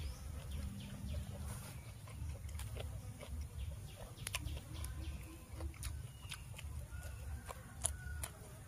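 Chickens clucking in the background, with scattered sharp clicks and crunches of raw vegetables being snapped and eaten.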